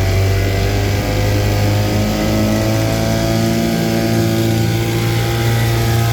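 A 1964 Johnson 3 hp twin-cylinder two-stroke outboard motor running steadily at a fast idle, its pitch drifting slightly up and down. It is running after its water pump impeller was replaced and its clogged cooling holes were cleared.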